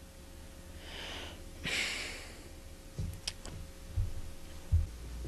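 A person's long audible breath in and out, a sigh, followed by three dull thumps of footsteps on the floor.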